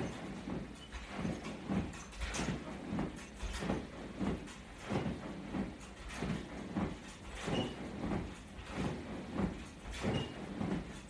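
A man's heavy rhythmic breathing and body movement during sit-ups, in short puffs about two a second.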